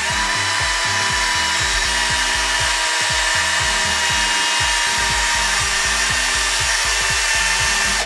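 Maxpuls cordless drill running steadily, spinning a 3D-printed plastic crimper head against the paper end of a coin roll to crimp it: a loud, even hiss with a steady motor whine.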